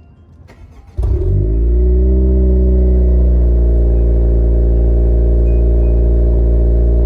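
Car engine starting: it catches about a second in, flares up and settles into a steady idle.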